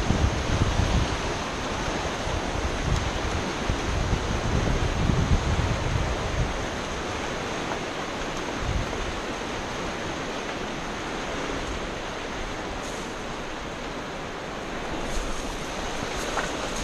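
Fast river rushing over rapids: a steady, even noise of running water. During the first six seconds, low rumbles of wind on the microphone come and go over it.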